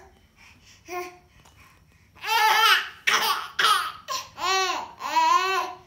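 A baby laughing hard in a run of about five high-pitched peals, starting about two seconds in.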